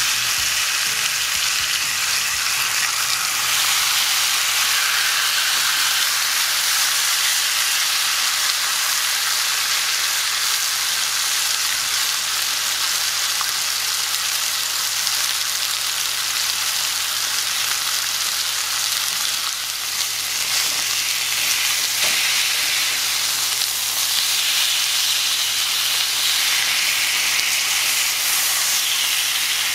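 Marinated chicken breasts sizzling steadily in a smoking-hot, oiled cast-iron grill pan.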